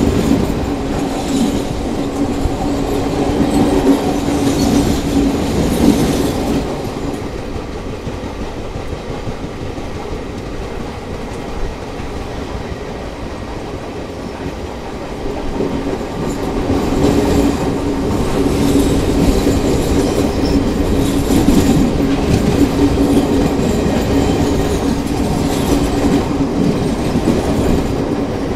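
Indian Railways ICF passenger coach running along the track: a continuous wheel-on-rail rumble with a steady low hum and a few clacks. The hum and rumble ease off for several seconds in the middle, then come back.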